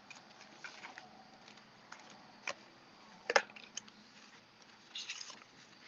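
Quiet handling of paper and card on a tabletop: a few light taps as card stock is put down, the clearest about three and a half seconds in, and a soft brushing sound near the end.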